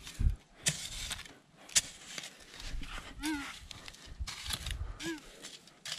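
A metal detector giving two short, low, arching beeps, a little after halfway and again near the end, among short scuffing knocks; the targets it is signalling turn out to be scraps of crushed aluminium cans.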